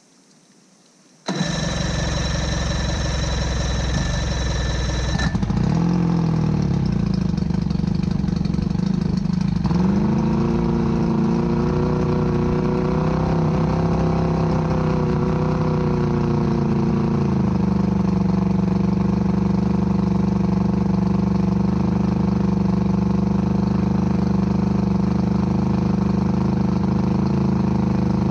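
A 1978 Johnson 115 hp V4 two-stroke outboard engine cranked on its electric starter for about four seconds, then catching and running unevenly with its speed rising and falling, before settling into a steady idle about two-thirds of the way through.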